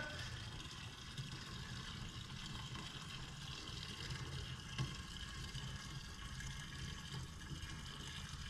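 Stale red gasoline running steadily out of an AE86 Corolla's fuel tank and splashing, an even liquid pour with no breaks.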